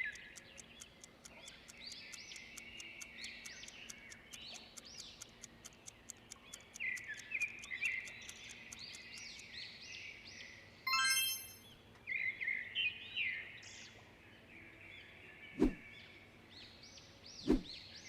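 Small birds chirping and twittering continuously. Over the first half runs a fast, even ticking of about four or five ticks a second. A bright chime sounds a little after ten seconds, and two short thumps come near the end.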